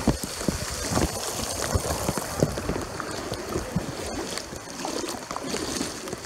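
Muddy floodwater streaming down a street in heavy rain: a steady rush of water and rain with irregular splashes throughout.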